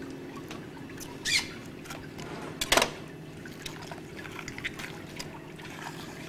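Water trickling and splashing while a salmon is cleaned and gutted, over a steady low hum. Two brief sharp sounds cut in, the louder one a little under three seconds in.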